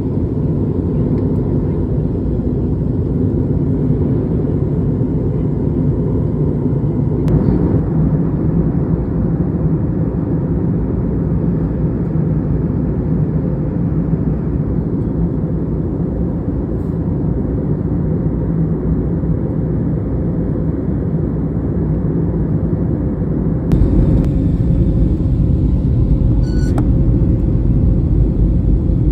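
Airliner cabin noise: a steady low rumble of the engines and airflow heard from inside the cabin. Near the end it gets louder, with added hiss.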